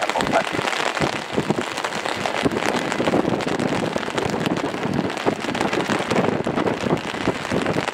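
Torrential rain hitting an umbrella held over the microphone, a dense, steady crackle of drops.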